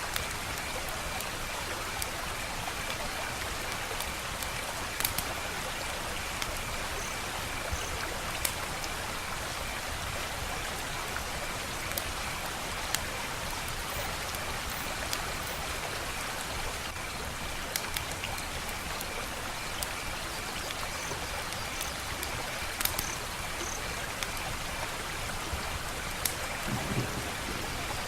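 Wood fire crackling: a steady hiss with scattered sharp pops every few seconds.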